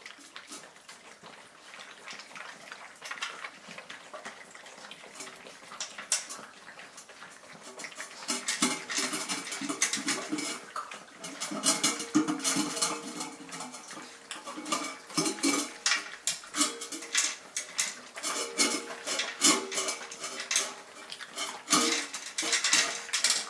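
Markiesje puppies drinking from a stainless steel bowl, lapping and nosing it so it clatters and rings against the tiles. The sound is quiet at first and becomes a busy clatter from about eight seconds in.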